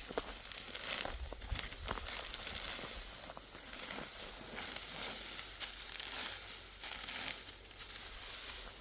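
Dry wheat stalks rustling and crackling as they are harvested by hand, with many short, sharp snapping strokes over a steady crisp rustle.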